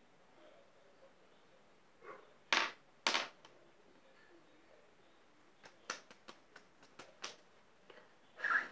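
Fingers tapping and knocking on a hard surface close to the microphone: two louder knocks about half a second apart, then a quick run of light clicks, and another knock near the end.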